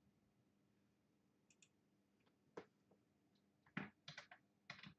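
Faint, scattered clicks of typing on a computer keyboard, a few at a time and then a quicker run near the end, over a faint steady low hum.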